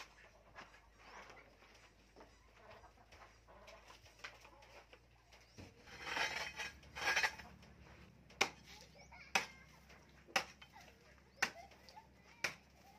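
Long-handled hoe striking hard dirt in sharp, regular thuds about once a second, starting about two thirds of the way in, as the ground is dug.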